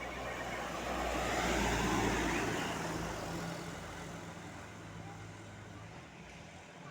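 Intercity bus driving past, its engine and tyre noise swelling to a peak about two seconds in and then fading away.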